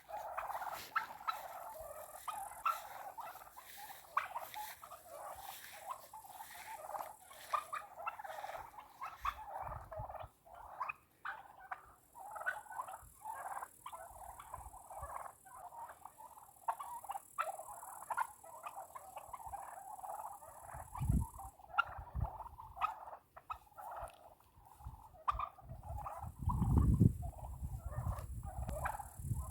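Flock of domestic turkeys calling continuously, many short overlapping calls. A brief low rumble comes about two-thirds of the way through, and a louder one near the end.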